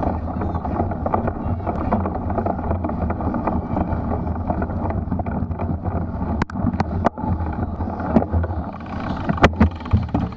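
Riding noise from a Specialized Crux Elite X1 cyclocross bike in a muddy race: a steady rush of wind over the microphone with tyre and drivetrain rattle. There are a few sharp knocks about two-thirds through and again near the end, as the bike jolts over rough ground.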